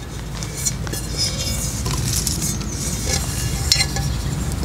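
Large stainless steel pot from a Stanley camp cook set being handled and turned over, giving light scrapes and small metallic clinks scattered through, over a steady low rumble.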